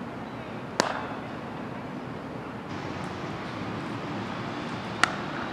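Two sharp cracks about four seconds apart over a steady outdoor background noise. The later one is a cricket bat striking the ball hard for a big, near-six hit.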